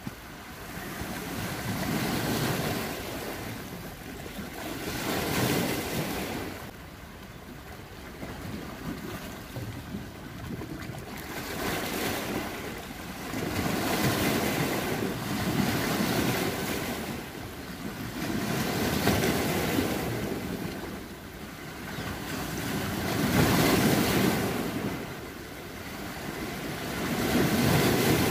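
Sea waves washing onto a rocky shore, the surf swelling and fading every four to five seconds.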